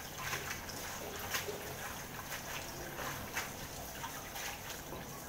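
Tap water running into a bowl in a stainless steel sink while handfuls of watercress are swished and lifted out, with frequent small splashes and drips over a steady hiss of water.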